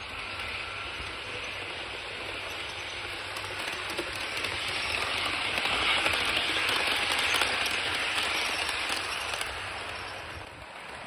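Katsumi HO-gauge 0 series Shinkansen model train running on its track, a steady rushing of wheels and motor. It grows louder to a peak a little past the middle, then fades as it passes.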